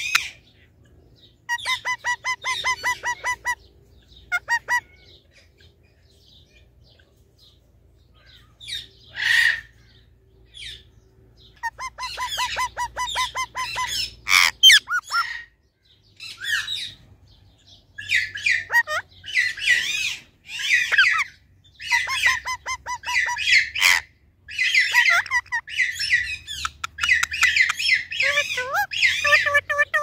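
Indian ringneck parakeets calling in bursts: quick runs of rapidly repeated notes mixed with harsh squawks, getting busier over the second half.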